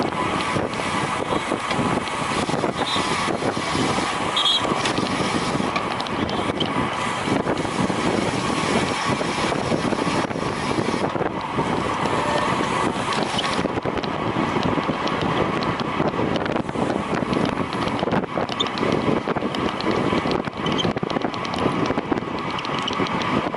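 Steady wind rushing over a rider-carried camera microphone on a road bicycle at racing speed, with a faint steady hum beneath.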